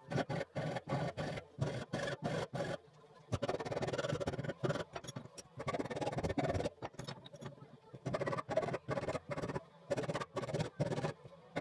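Background music with a steady, choppy beat.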